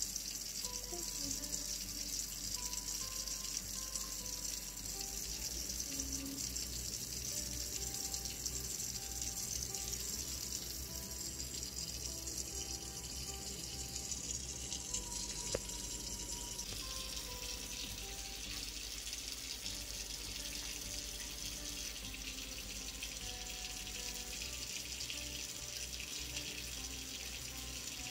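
Quiet background music, a soft melody of short held notes, over a steady hiss.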